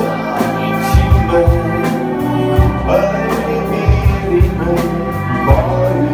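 Live rock band playing: a drum kit keeps a steady beat under electric guitar and bowed violin.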